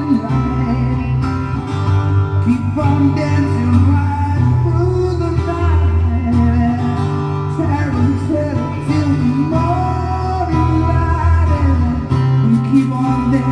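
Guitar-led song playing from a vinyl single on a turntable, a gliding melody over a steady bass.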